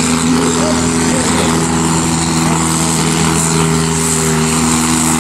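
Diesel engine of a Megasport-class pulling tractor running at a steady high pitch under full load as it pulls the weight sled.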